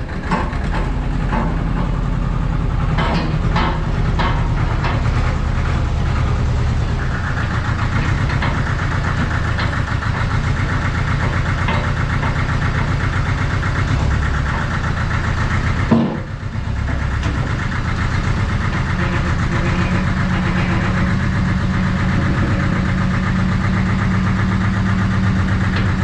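Allis-Chalmers 5020 compact tractor's diesel engine running steadily with an even, fast knock as it drives up close. One sharp click and a brief dropout come about two-thirds of the way in.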